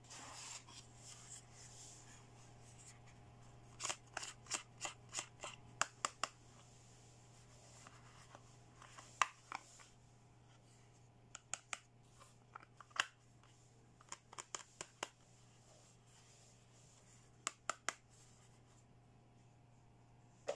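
Hard plastic toy handbag handled, opened and closed on its hinged lid: a soft rustle at first, then several groups of quick, sharp plastic clicks and taps.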